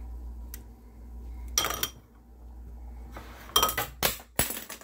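A metal spoon and white ceramic bowls clinking and scraping as canned peas are spooned onto rice: a few separate clatters, one less than two seconds in and several close together near the end.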